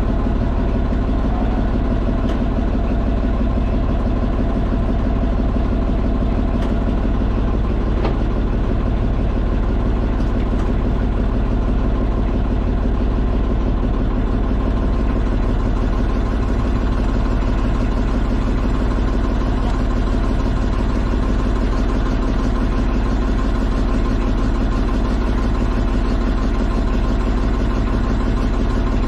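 Outrigger boat's engine running steadily at a constant trolling speed, one even note throughout.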